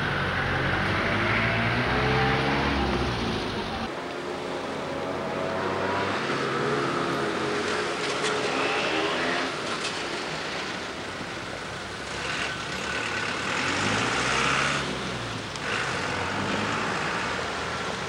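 Traffic noise: vehicle engines running and passing, their pitch rising and falling. The sound changes abruptly about four seconds in.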